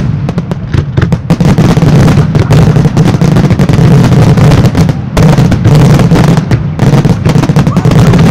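A dense, loud barrage of Italian and German display fireworks, shells and salutes bursting in quick succession, with a brief let-up about five seconds in.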